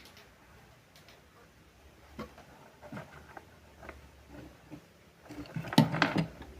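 Scattered light clicks and knocks of handling, with a louder cluster of knocks about six seconds in.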